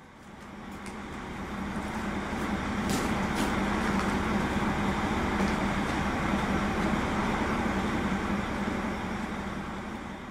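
KiHa 40 diesel railcar running, its diesel engine giving a steady drone that swells over the first few seconds, holds, and eases off near the end, with a few faint clicks about three seconds in.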